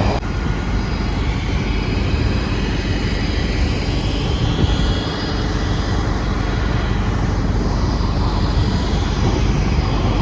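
A large engine running steadily, a low drone with a hiss over it.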